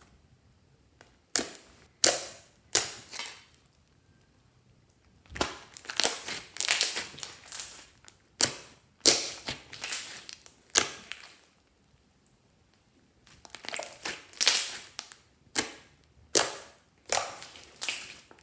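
Clear slime being squeezed and pressed by hand, giving sharp wet pops and crackles in clusters, with short pauses between handfuls.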